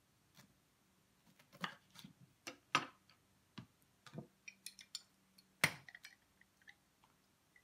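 Knife cutting a lemon on a wooden cutting board: scattered sharp knocks and taps of the blade and kitchen utensils on the board, the loudest a little past halfway.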